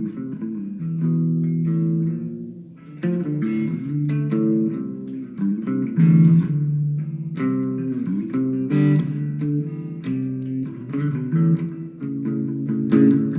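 Guitar playing a continuous line of plucked notes, with a few notes sliding or bent in pitch.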